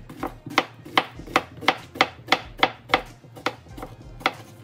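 Kitchen knife slicing yellow squash into rounds on a plastic cutting board: a steady run of sharp chops, about three a second.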